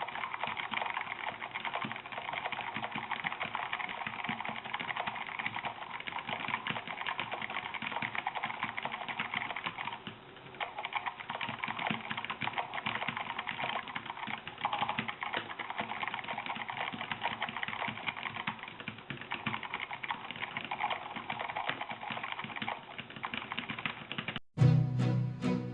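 Fast continuous typing on an Armageddon MKI-3 mechanical keyboard with Kailh Red linear switches: a steady clatter of key strikes and bottoming-out with no switch click, pausing briefly about ten seconds in. Near the end it cuts off suddenly and music begins.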